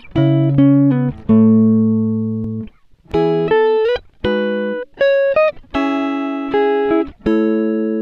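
Background music on guitar: single notes and chords picked and left to ring out, with a few short slides between notes.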